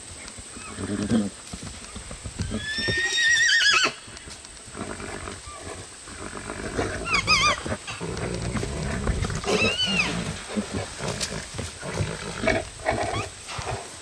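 Norwegian Fjord horses squealing during breeding as the stallion mounts a mare in heat: three loud, high-pitched, wavering squeals, the first and longest about three seconds in, with rough low sounds from the horses in between.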